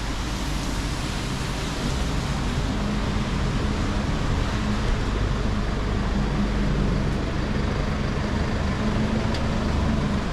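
Street traffic on a wet city road: a vehicle engine hums steadily from a couple of seconds in and stops near the end, over a constant hiss of rain and tyres.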